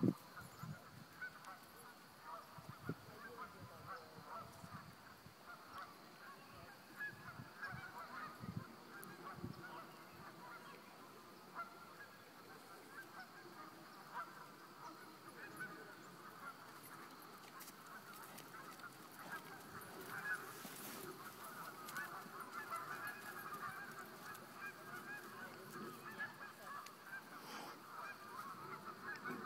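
A flock of geese honking faintly, many calls overlapping without a break and growing a little fuller in the second half, with a few soft low thumps early on.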